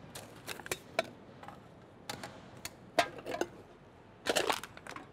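Faint, irregular clicks and taps in small clusters, the loudest cluster near the end.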